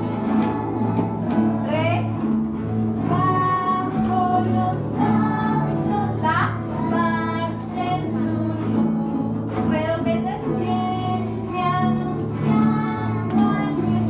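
Children and a woman singing a song together, accompanied by several strummed acoustic guitars.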